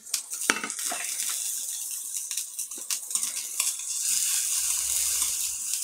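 Steak sizzling steadily in a hot AMC stainless-steel frying pan with a pyramid-textured base, with a few light clicks of metal tongs against the pan.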